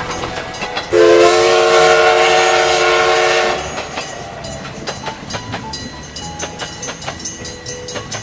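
Train horn sounding a steady multi-tone chord for about two and a half seconds, starting about a second in, followed by the rhythmic clickety-clack of train wheels passing over rail joints.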